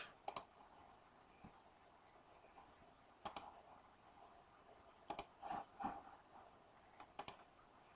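Faint computer mouse and keyboard clicks: a handful of separate sharp clicks a second or more apart, two in quick succession near the end.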